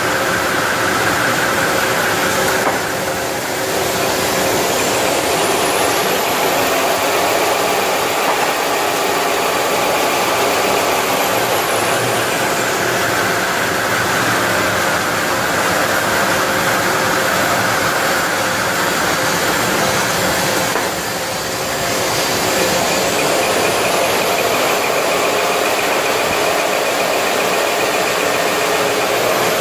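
Fully automatic band saw toilet paper log cutting machine running: a loud, steady machine drone with several held tones. The level dips briefly twice, and twice a very high whine rises, holds for several seconds, then falls.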